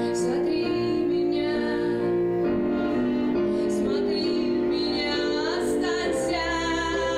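A recorded rock song from the show's soundtrack: a singer holding long notes over instrumental backing.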